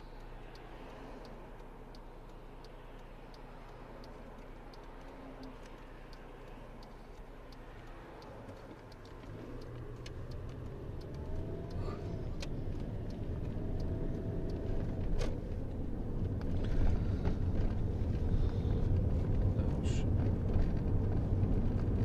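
Car interior: a quiet, steady engine idle while the car is stopped. From about nine seconds in, engine and road rumble grow steadily louder as the car pulls away and gathers speed.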